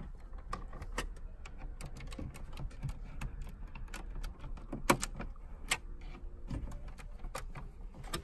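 BMW dashboard trim being unclipped and worked loose by hand: scattered plastic clicks and knocks, with a sharper click about five seconds in and another shortly after.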